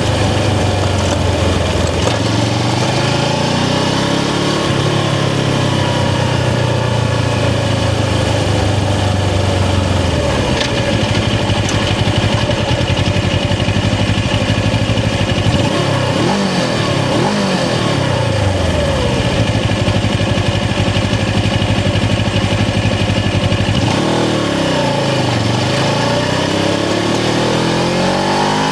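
Suzuki GS500's air-cooled parallel-twin engine pulling the bike along, its note climbing and falling with throttle and gear changes, dipping and climbing again in the middle and near the end, over a steady rush of wind noise.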